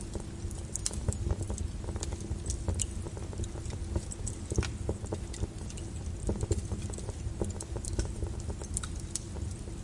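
Fire crackling, with irregular sharp pops and snaps over a steady low brown-noise rumble.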